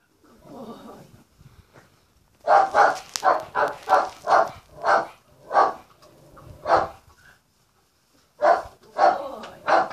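A dog barking: a quick run of short barks starting a couple of seconds in, a few more barks spaced further apart, then another quick run near the end.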